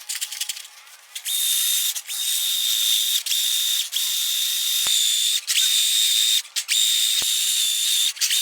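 Small electric motor of a power tool running with a steady high whine, starting about a second in and cutting out briefly many times, as if its trigger is being released and pressed again.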